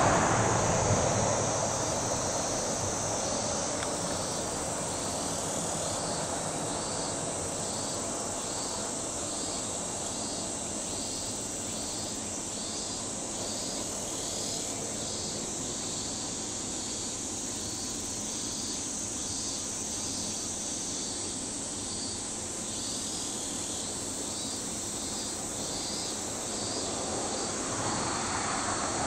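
Summer insects, likely cicadas, buzzing steadily with a call that pulses about once a second, over the low rumble of an electric train. The rumble is loud at the start and fades within the first couple of seconds, then grows again near the end as the yellow local train draws closer.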